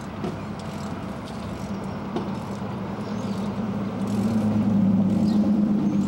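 A vehicle engine hums steadily and grows louder about four seconds in.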